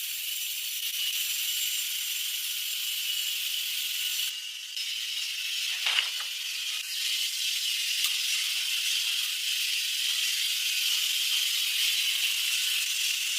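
Power saw ripping timber lengthwise: a steady high-pitched hiss with a whine in it. The sound dips briefly about four seconds in, and there is a sharp knock a couple of seconds later.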